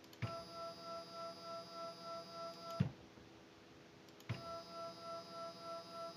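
Stepper motor driven by a CNC controller, whining at one steady pitch for about two and a half seconds while stepping at a constant rate, then stopping with a clunk. A second identical move starts about four seconds in.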